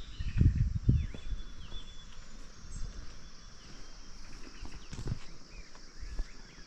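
Small birds chirping over a steady insect hum in the background, with a few low thumps close by, about half a second in and again near five seconds.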